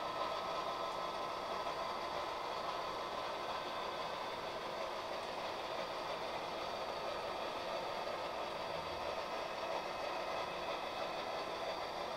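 HO-scale model freight train running on the layout's track: a steady whir with a faint rolling rattle from the cars' wheels on the rails.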